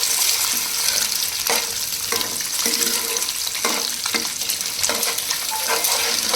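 Beaten eggs sizzling in hot oil in a wide pot, with a steady hiss, while a spatula turns and scrapes them in repeated short strokes.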